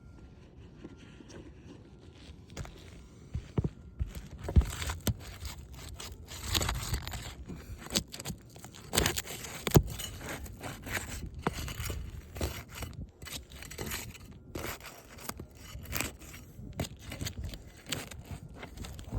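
Irregular scraping, crackling and sharp knocks of hands and a tool working at a damaged three-tab asphalt roof shingle to loosen it for removal, starting about three and a half seconds in after a low rumble.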